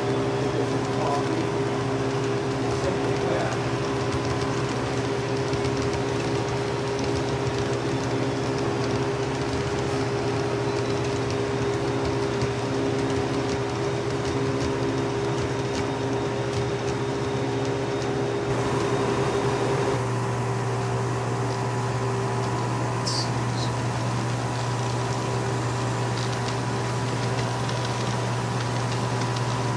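HO scale model trains running on layout track: a steady hum with faint light ticking. The sound shifts about 19 seconds in.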